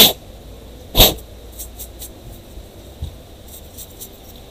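Two short, sharp puffs of air, about a second apart, blown through a laptop heatsink and fan assembly to clear dust out of it, with faint small handling clicks after them.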